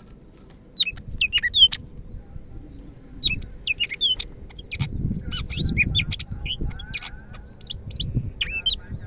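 Cucak ijo (green leafbird) singing vigorously in quick phrases of sharp, high whistled notes that sweep downward. The song starts about a second in, pauses briefly, then grows busier.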